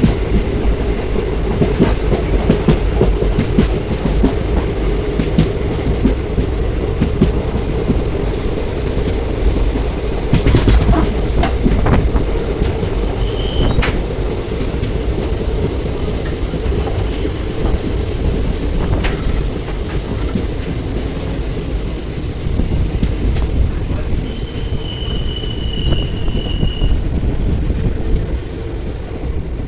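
Moving passenger train: steady rumble of the coaches with the clickety-clack of wheels over rail joints. A brief high squeal comes about halfway through, and a longer one of two to three seconds near the end.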